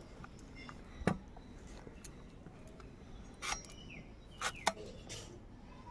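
Green bananas being cut on a boti, a curved upright blade fixed to a wooden base: a knock about a second in, then a few short, sharp cutting sounds in the second half as the blade goes through the fruit.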